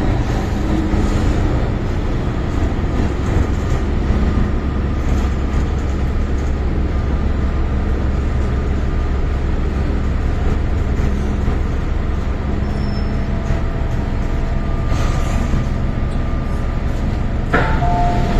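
Steady low rumble and hum inside an MTR M-Train car. Near the end there is a click, then a two-tone electronic beeping starts.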